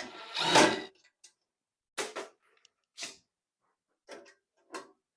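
Short clicks and knocks of a hand tool and screws on a metal housing as the side screws holding a sausage stuffer's cover box are taken out: one longer rasping scrape about half a second in, then single clicks about once a second.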